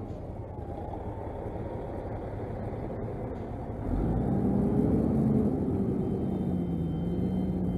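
Semi truck's diesel engine rumbling as it drives close past with a hopper-bottom trailer, growing louder about four seconds in as the cab and trailer go by.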